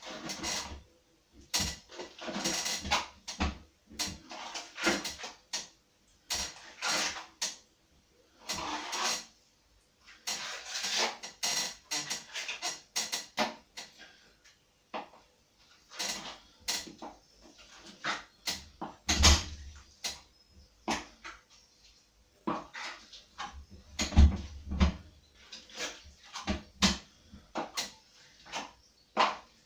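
Plastering trowel scraping and smoothing over a wet skim coat of finish plaster in repeated strokes with short pauses, and a few dull thumps in the second half.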